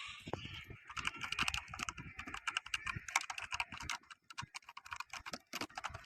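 Typing on a Nubwo Termination X30 mechanical keyboard: a quick, uneven run of key clicks with a short lull partway through.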